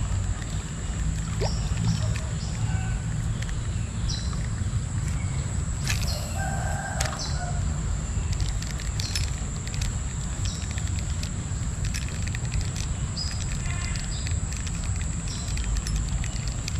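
Steady low rumble of flowing river water, with short high chirps and clicks scattered throughout and a steady thin high whine above it.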